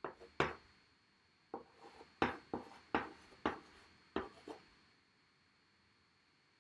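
Chalk drawing on a blackboard: about a dozen short, quick chalk strokes and taps, stopping about two-thirds of the way through.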